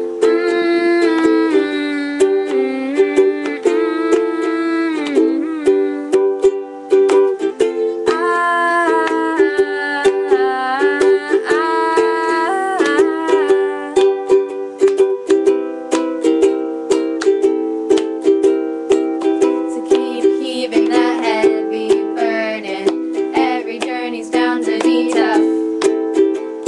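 Instrumental break of an acoustic song with no singing: a strummed string instrument keeps a steady rhythm while a sliding melody line is played over it.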